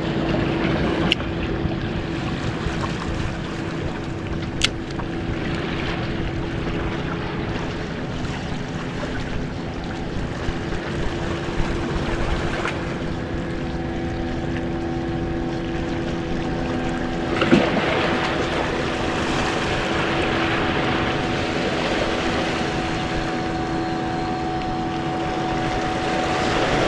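A boat engine running steadily, a continuous hum with a second, higher tone joining about halfway, over wind and water noise. A few brief sharp clicks are scattered through it.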